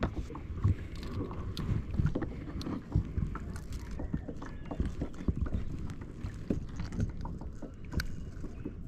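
Irregular knocks, bumps and rubbing from movement aboard a fishing kayak, over a low rumble of wind and water.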